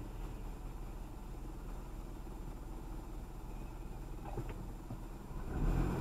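Car engine idling and rolling slowly, a steady low hum heard from inside the cabin, with a faint click about four seconds in and the hum growing louder near the end.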